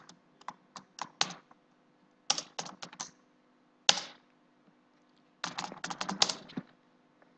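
Computer keyboard typing in short bursts of keystrokes: a few keys, a pause, another short run, a single hard key press near four seconds in, then a quick run of keys near the end.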